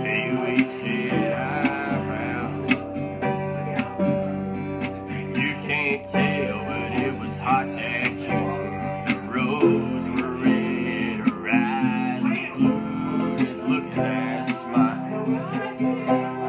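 Acoustic guitar strummed in a steady rhythm through an instrumental break of a country ballad, with a wavering melody line sounding over the chords.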